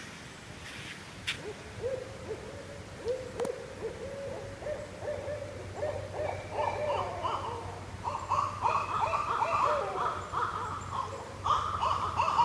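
Barred owls calling back and forth in a run of wavering hoots. The calls overlap and grow louder and busier from about six seconds in, with higher-pitched hoots joining the lower ones.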